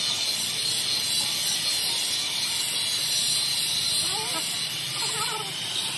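Water spraying from a hose onto a radiator core, a loud, steady hiss.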